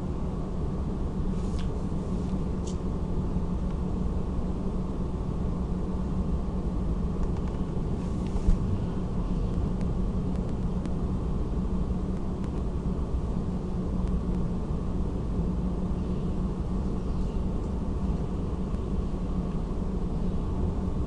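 Steady low background rumble with a hum, picked up by an open microphone, with a few faint clicks early and a single brief thump about eight and a half seconds in.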